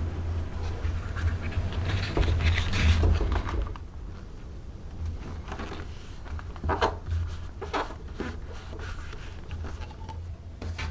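Leather being worked with hand tools: a busy stretch of rubbing and scraping with a low hum under it, then quieter, with a few short separate strokes.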